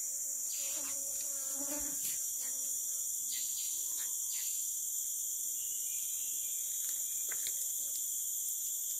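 Steady, high-pitched chorus of tropical forest insects, droning without a break.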